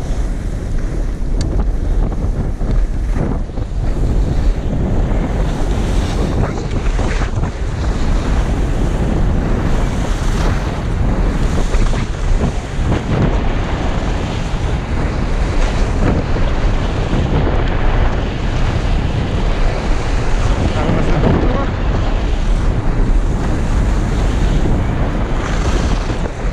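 Heavy wind buffeting on the microphone of a camera carried by a skier going downhill, with the steady hiss and scrape of skis on packed snow under it, surging with the turns.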